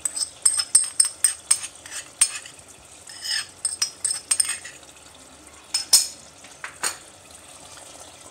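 Quick clicks and scrapes of a utensil against the bowl and clay handi as cream is scraped into the simmering chicken curry, with a faint sizzle of the pot underneath. The clicks come thick for the first half, then thin out, with two sharp knocks near the end.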